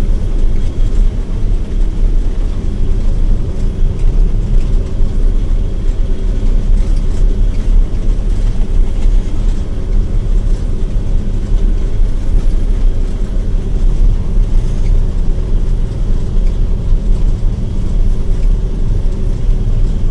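John Deere 9700 combine running steadily while harvesting wheat, heard from inside the cab: a constant low drone of the engine and working machinery.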